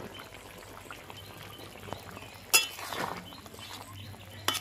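Flat metal spatula stirring a thick curry in a metal kadai, scraping the pan and clinking against it. There are two sharper clinks, about two and a half seconds in and just before the end; the first is the loudest and rings briefly.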